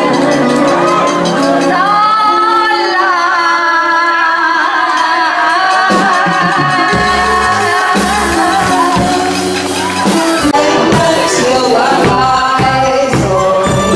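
Live band music with a woman singing a ballad into a handheld microphone through a PA system. The bass and drum beat fills in about six seconds in.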